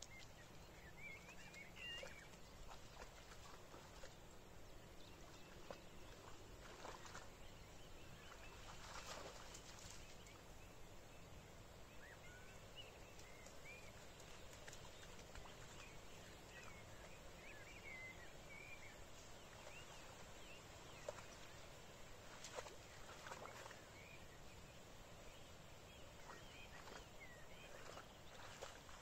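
Faint outdoor quiet with a few soft splashes and squelches as a dog wades through shallow mud and water, and small birds chirping faintly in the background.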